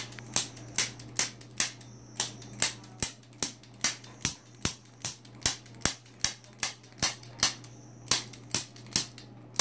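Impulse chiropractic adjusting instrument firing sharp clicks, about two and a half a second, as it delivers repeated trigger-pulled thrusts along a dog's hip and back. A low steady hum runs under the clicks.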